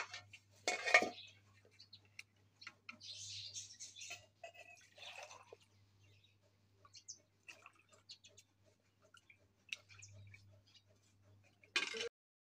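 Light clinks and knocks of steel utensils: a steel ladle against a steel pot and tumbler. There is a sharper clatter about a second in and another near the end, with faint bird chirps in the background.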